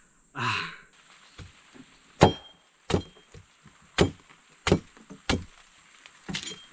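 Machete (cutlass) chopping into the husk of a green coconut, about eight sharp strikes roughly two-thirds of a second apart, opening it for its water. A short burst of noise comes just before the first strike.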